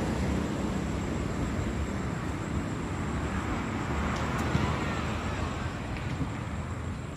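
Road traffic on the bridge overhead: a vehicle's rumble that slowly fades away.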